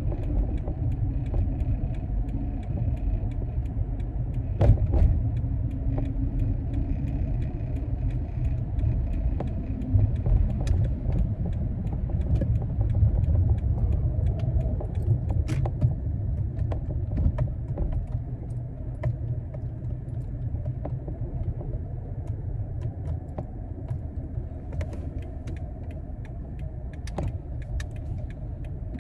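Cabin noise of a moving 2012 Toyota RAV4: a steady low road and engine rumble, with scattered light clicks and rattles and a louder knock about five seconds in.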